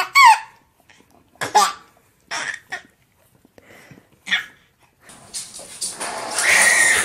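A baby's short squealing laughs, several separate bursts with gaps between them. Then a steady rolling rumble of a baby walker's wheels being pulled over a wooden floor, with a brief high squeal near the end.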